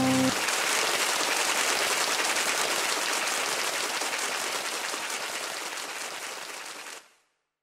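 A held music chord ends just after the start, giving way to a dense, even clatter of many rapid small clicks. The clatter slowly fades and cuts off suddenly about seven seconds in.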